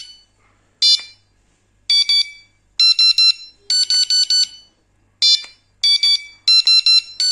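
Electronic carp-fishing bite alarm beeping in short, rapid trains of high-pitched beeps, about eight trains with pauses between them. The pitch changes from train to train as the tone setting is stepped through.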